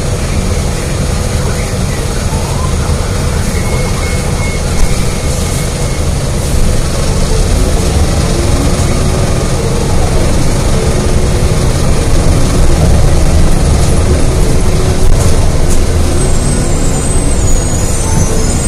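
Inside a Gillig Low Floor CNG transit bus under way: the engine and road noise make a steady low rumble that grows louder in the second half. A thin high squeal comes in near the end.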